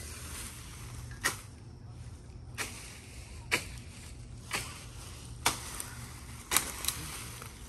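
A hand tool hacking into brush and ground, sharp strikes about once a second with a quick double strike near the end.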